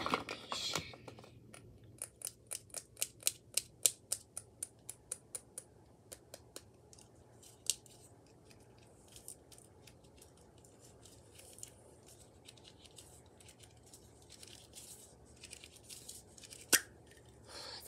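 Small cosmetic item and its packaging handled by hand. A quick run of sharp clicks lasts a few seconds, followed by scattered lighter clicks and rustling, and one sharp click near the end.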